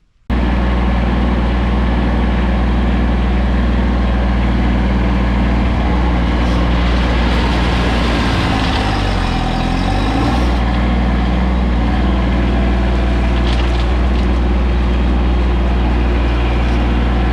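Kubota B2301 compact tractor's three-cylinder diesel engine running steadily at speed. About halfway through, its pitch sags briefly as if under load, then comes back up.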